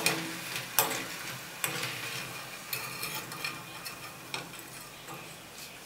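Hot oil sizzling faintly around fried murukku while a metal slotted spoon scrapes and knocks against a non-stick wok, with a string of sharp clicks, as the finished murukku are scooped out of the oil.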